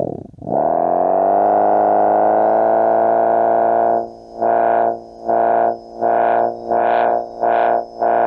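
Homemade optical engine-sound generator, a photoreflector reading a spinning patterned cardboard disc with the signal amplified through a speaker, giving a buzzy, engine-like tone. Its pitch sinks almost to nothing right at the start, climbs back and holds steady, then from about halfway the tone cuts in and out in short bursts, about two a second.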